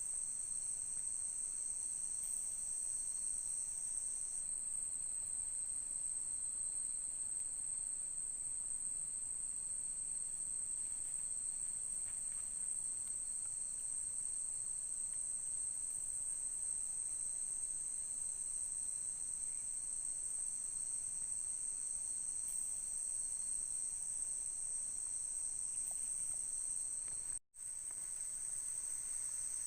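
Night chorus of rainforest crickets and other insects: a steady, high-pitched, unbroken chirring made of several overlapping layers. All sound cuts out for an instant about two seconds before the end.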